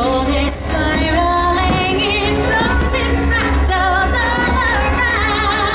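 A song from the fireworks show's soundtrack plays loudly. A woman sings held notes with vibrato over a full musical backing.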